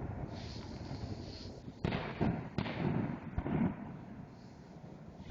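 Fireworks exploding: about three sharp bangs in the middle, each trailed by a low rumbling echo, over the fading rumble of an earlier burst.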